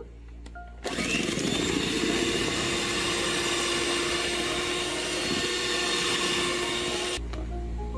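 Electric hand mixer switched on about a second in, its motor whirring steadily as the beaters mix sugar and vanilla into the cookie dough, then switched off near the end.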